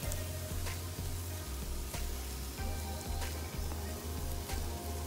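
Chopped cabbage, carrot, capsicum and shredded chicken sizzling in butter in a steel pot, a steady frying hiss with a few light clicks, over background music with a bass line.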